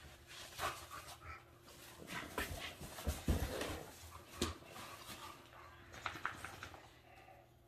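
Two bulldogs, an American Bulldog and an English Bulldog puppy, panting during rough play, with irregular short rustles and knocks as they tussle.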